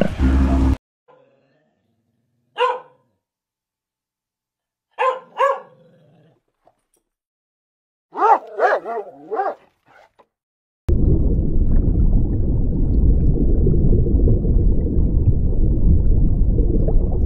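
A dog barking: one bark, then two, then a quick run of four or five barks, with silence in between. About eleven seconds in, a steady low rumbling noise starts and continues.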